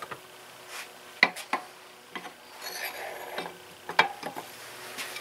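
Metal hand tools and engine parts clinking and knocking as they are handled, with a few sharp clicks and a brief scraping rub about three seconds in.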